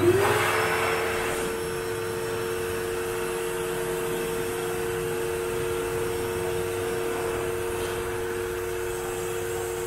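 VacMaster Beast 12-gallon wet/dry shop vac switched on: its motor spins up in about half a second, then runs steadily with a whine and a rush of air through the hose.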